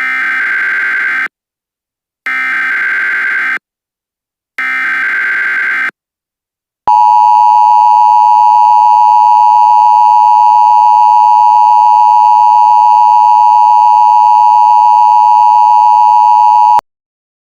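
Emergency Alert System signal: three short bursts of screechy digital header data with pauses between them, then a steady, loud attention tone lasting about ten seconds that stops abruptly.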